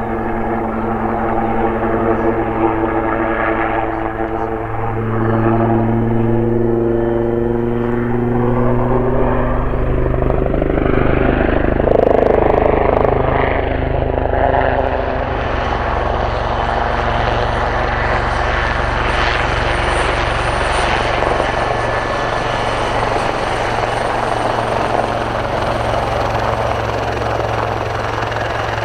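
Westland AW159 Wildcat helicopter's rotors and twin turboshaft engines running in flight, a steady beat with stacked tones that dip slightly in pitch about a third of the way in. A broad rushing noise then takes over as it comes in low, with a faint high turbine whine from about halfway.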